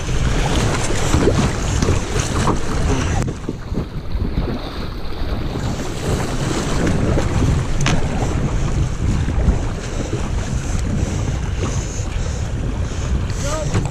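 Fast river water rushing and splashing around a kayak running riffles, with paddle strokes in the water. Wind buffets the microphone throughout.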